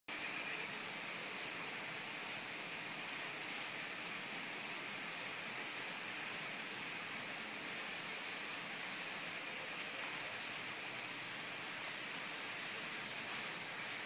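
Steady, even hiss of outdoor ambience, mostly high-pitched, with no distinct events.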